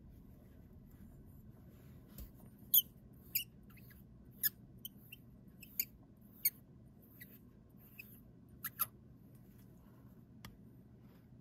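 Stainless steel barrel and nib section of a Parker 50 Falcon fountain pen being twisted apart at their threaded joint: a series of short, high squeaks and clicks from the metal threads and rubber O-ring, about a dozen of them over several seconds. Near the end comes one faint tick as the barrel is set down on the table.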